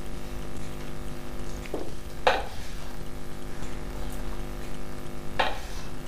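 Wooden spatula scraping thick pea-flour batter out of a stainless steel saucepan onto cling film, with sharp scrapes about two seconds in and again near the end, over a steady low hum.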